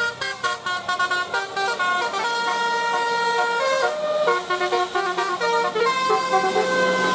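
Bus 'telolet' musical air horn playing a tune of stepped notes, several pitches sounding together. Quick short notes for about the first two seconds, then longer held notes.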